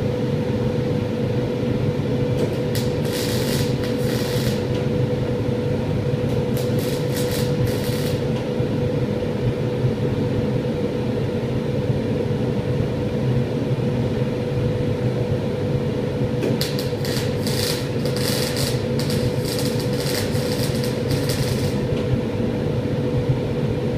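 Steady hum of a workshop fume extraction fan with a constant tone, broken by spells of crackling hiss from a welding arc: two short ones about three and seven seconds in, and a longer run from about sixteen seconds.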